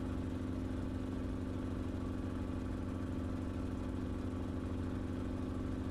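Enstrom helicopter in flight: a steady drone of engine and rotor, with a constant humming tone over a fast low throb.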